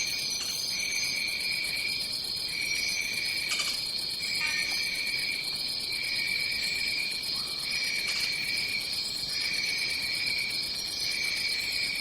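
Insect chorus of crickets trilling steadily in overlapping high-pitched trills, a lower trill stopping and restarting about once a second.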